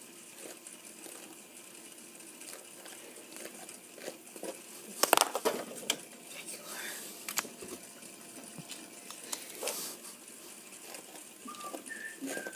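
Scattered clicks and knocks of plastic dolls and dollhouse pieces being handled, with a cluster of sharper knocks about five seconds in. Faint voices murmur underneath.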